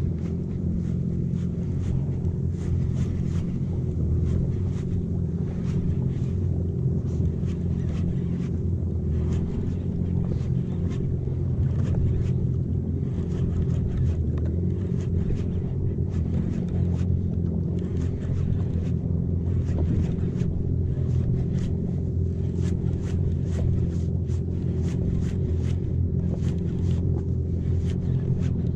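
Jet ski engine running steadily at slow trolling speed, a low, even drone.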